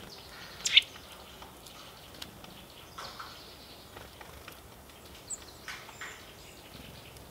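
Short, sharp wild bird calls at irregular intervals, the loudest about a second in, with a faint high chirp a little past the middle.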